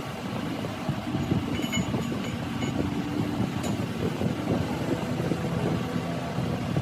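Machinery running steadily with a rough low rumble and crackle, with a few light metallic clinks in the first half.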